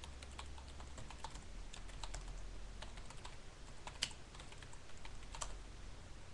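Typing on a computer keyboard: irregular key clicks, with two sharper clicks about four and five and a half seconds in.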